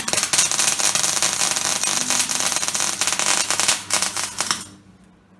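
Electric arc welder crackling steadily while welding laser-cut metal parts; the arc stops near the end.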